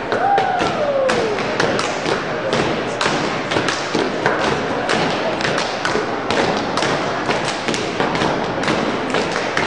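Rapid, uneven thumps and taps, about three a second, with a short falling tone in the first second or so.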